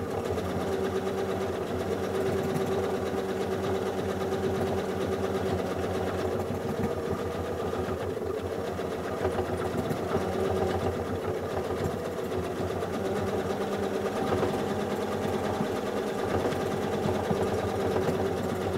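Home sewing machine running steadily during free-motion quilting, its needle stitching rapidly through the layers of a quilt in a dense echo-filled boomerang design.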